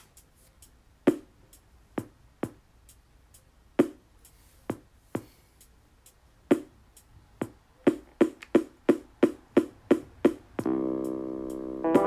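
Drum-machine beat with spaced-out hits that turn into a quicker run of about four hits a second. About ten and a half seconds in, a held electric piano chord comes in over it.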